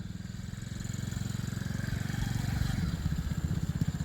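Small 110 cc four-stroke single-cylinder engine of a children's mini ATV idling, a steady fast even pulse that swells slightly about two seconds in.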